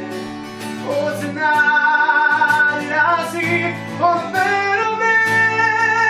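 A man singing long held notes over a strummed acoustic guitar.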